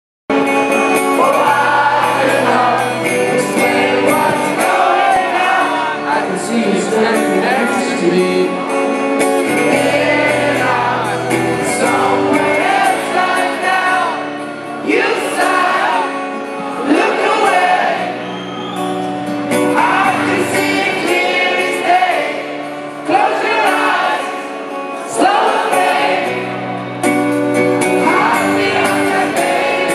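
Rock band playing a song live, with a man singing lead over acoustic guitar, keyboard and bass.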